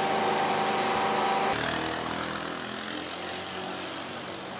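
A motor running steadily with a high held whine. About a second and a half in, it cuts to a lower, steadier engine hum with outdoor noise.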